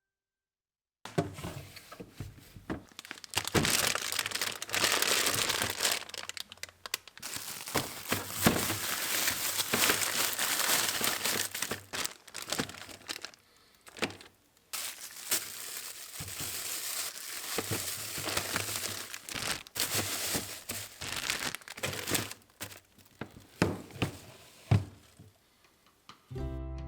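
Plastic bags and wrapping crinkling and rustling as they are handled, with irregular knocks and clicks of items being set down.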